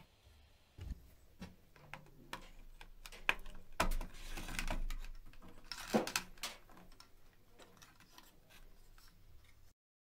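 Small clicks and rustling of electrical wires and a circuit board being handled as the wires are plugged into the board's terminals, with a longer rustle about four seconds in and a sharper click about two seconds later.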